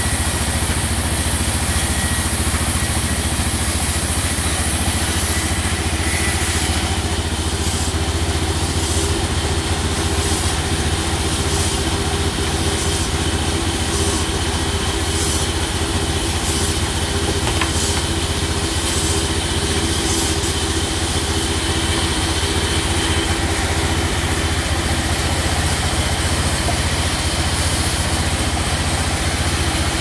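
Large sawmill band saw running steadily with a deep hum, its blade ripping lengthwise through a mango wood plank as the plank is fed by hand.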